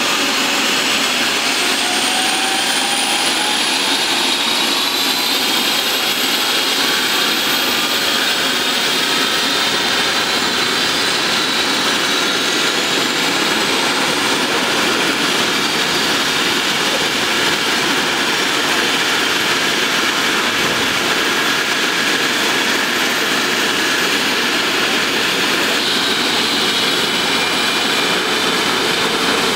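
Eurocopter EC135 helicopter's twin turboshaft engines running on the ground with the rotor turning: a steady loud rushing hiss with turbine whines that rise slowly in pitch over the first ten seconds or so, as the engines spool up before lift-off.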